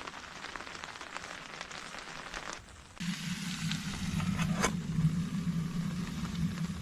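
Rain pattering with scattered drop ticks. About three seconds in, the sound cuts to something louder: a steady low rush with crackles and one sharp snap.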